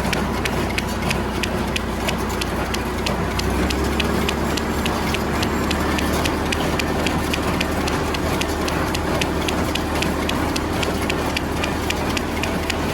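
Welger AP51 square baler working behind a running tractor: a steady engine drone with a fast, even clicking of about three to four clicks a second from the baler's moving parts.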